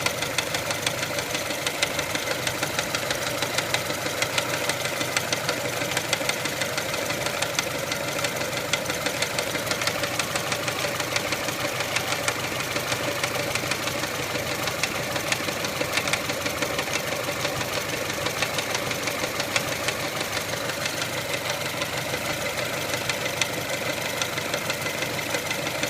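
Mitsubishi 4G93 inline-four engine of a 1999 Pajero iO running steadily with a regular knocking. The owner wonders whether the knock comes from the crankshaft pulley, which is visibly wobbling.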